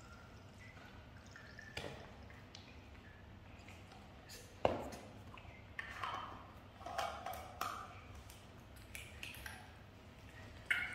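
Milk dripping from a small carton into a plastic baby bottle, then small clicks and knocks as the bottle and its cap are handled, the sharpest click about four and a half seconds in.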